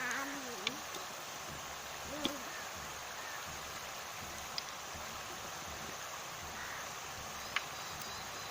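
Rice murukku deep-frying in hot oil: a steady sizzle with four sharp pops spread through it.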